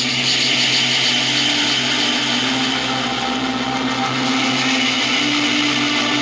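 A dark, droning music track playing back from a computer: a harsh, hissing wall of noise over long held low notes, the upper note stepping up in pitch about five seconds in.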